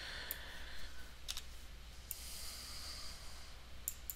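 A handful of scattered, sharp computer mouse clicks over a faint steady low hum.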